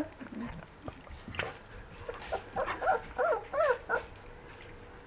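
Two-week-old rough collie puppies whimpering: a quick run of four or five short cries that rise and fall in pitch, with a sharp click a little over a second in.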